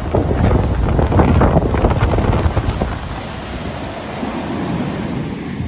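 Heavy storm surf breaking and rushing in around the stilts of a beach house, with strong wind buffeting the microphone. The sound is loudest in the first three seconds or so, then eases a little.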